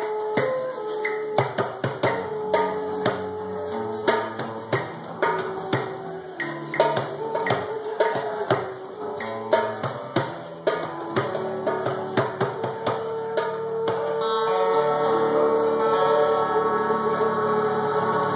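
Live duet of a side-blown wooden flute and a hand drum: the flute plays long held notes over quick, steady drum strikes. About fourteen seconds in, the drumming stops and sustained tones take over.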